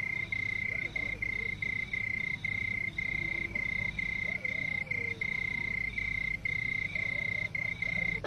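Cricket trilling at night: one steady high note broken by short gaps a few times a second.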